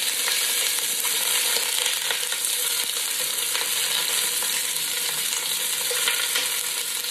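Onion halves, shallots, ginger and whole spices sizzling steadily in very hot oil in an enamelled cast-iron pot as they char, turned over with metal tongs that give light clicks and scrapes.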